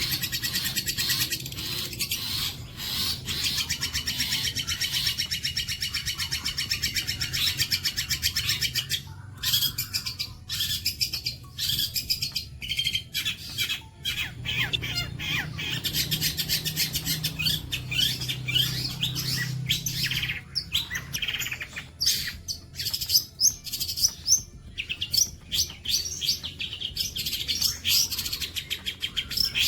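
Long-tailed shrike (cendet) singing a long, rapid, chattering high-pitched song almost without a break, pausing only briefly a few times.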